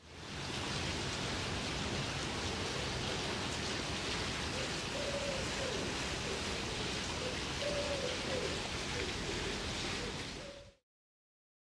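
Steady outdoor background noise, a plain even hiss, with a few faint pigeon coos in the second half. The sound fades in at the start and stops abruptly near the end.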